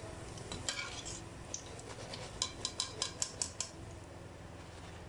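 Metal spoon scraping and tapping against an aluminium karahi as fried pakoras are lifted out of hot oil, with a quick run of about eight sharp taps a little over two seconds in. Faint steady hiss of the frying oil underneath.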